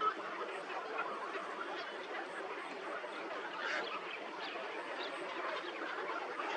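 Dense, continuous chatter of a flock of birds, many short calls overlapping with no pause.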